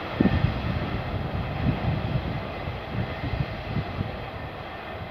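Freight train of wagons carrying new trucks rolling away through the station, its running noise broken by irregular low thumps from the wheels and slowly fading as it recedes.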